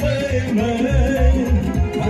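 Romanian-style folk dance music for a hora ring dance, a melody over a steady bass beat of about three to four pulses a second.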